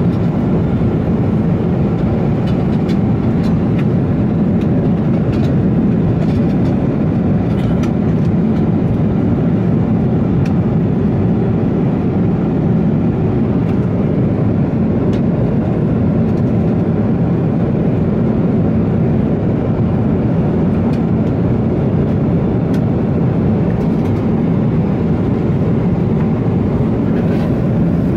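Steady cabin noise inside a Boeing 777-300ER airliner in flight: an even, unbroken rush strongest in the low range, with a few faint light clicks now and then.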